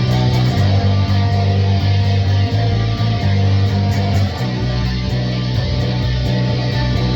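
A rock band playing: heavy electric guitar and bass chords, each held about a second before changing, over steady drums and cymbals.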